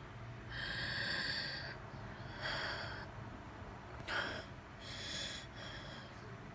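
A person's wheezing breaths during an asthma flare-up set off by a coughing fit: several deep breaths, each with a high whistling tone, the longest about half a second in.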